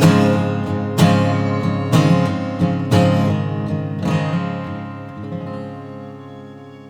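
Acoustic guitar strummed about once a second for a handful of strokes, then a final chord left to ring and fade out, ending the song.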